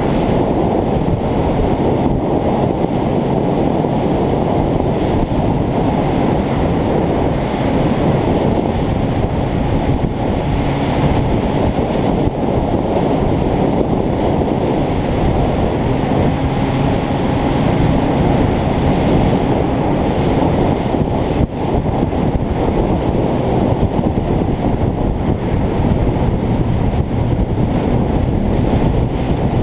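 Steady wind noise buffeting an action camera's microphone on a vehicle moving at road speed, a constant heavy rush with the vehicle's running engine faintly beneath it.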